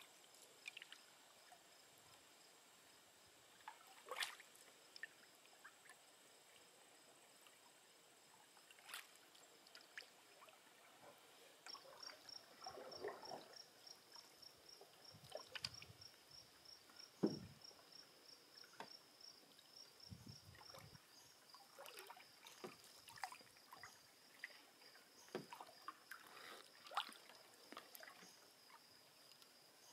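A canoe being paddled quietly: soft paddle strokes, drips and small knocks, with one louder knock a little past halfway. Behind them a faint, high insect trill, probably crickets, which turns into an even pulsing after about 12 s.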